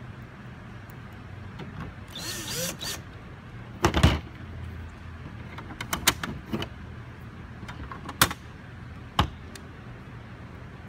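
Cover panels of a mini PC's chassis being set in place and pressed down: a few sharp clicks and knocks, the loudest about four seconds in, with a steady low hum underneath.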